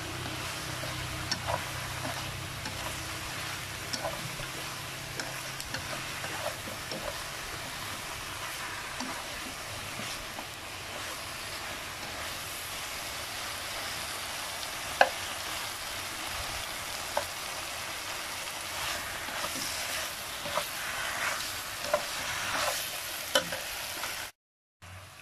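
Bok choy and vegetables sizzling as they are stir-fried in a wok, with chopsticks clicking against the pan now and then. The sizzle breaks off for a moment near the end.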